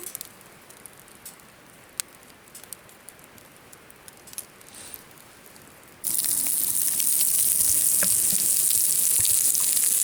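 A few faint clicks, then about six seconds in, food starts sizzling loudly and steadily in hot oil in a frying pan.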